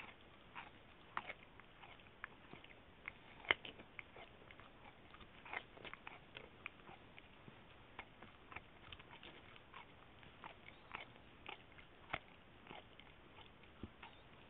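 Dachshund chewing and gnawing on a chicken foot: faint, irregular wet clicks and crunches of teeth, several a second, with a louder snap about three and a half seconds in and another near twelve seconds.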